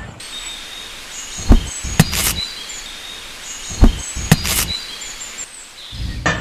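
Outdoor ambience with faint bird chirps, broken twice by a pair of sharp knocks, about a second and a half in and again near four seconds. A low hum starts just before the end.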